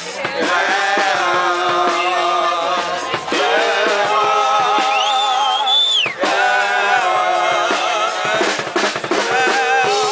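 Live rock band playing, with a drum kit keeping the beat under a wavering melodic line and a high gliding note around the middle.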